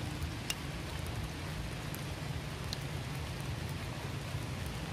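Steady rain falling on wet ground and puddles, with a couple of sharp ticks from drops.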